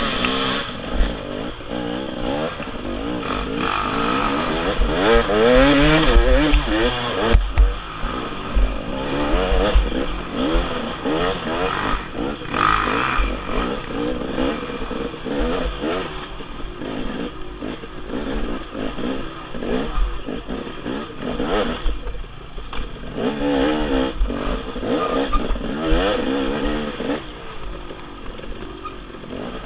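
Dirt bike engine revving up and down over and over as it is ridden along a rough trail, with scattered knocks and clatter from the bike over the uneven ground.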